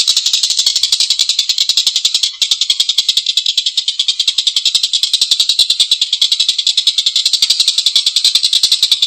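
A tengkek buto kingfisher giving its long, harsh chattering call: a fast, even rattle of sharp notes, about ten a second, with a brief break about two seconds in.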